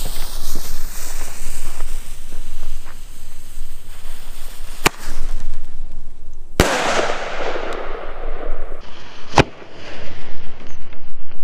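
Blackboxx Vogelschreck single-shot ground-to-air bomb tubes firing: three sharp bangs a couple of seconds apart, about five, six and a half and nine and a half seconds in. The middle bang is the loudest and is followed by a hiss that fades over about two seconds.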